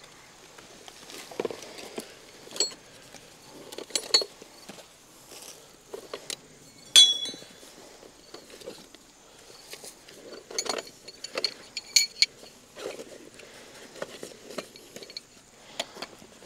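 Irregular sharp clinks and knocks of hunting gear being handled, about a dozen, the loudest about seven seconds in with a short ringing tail.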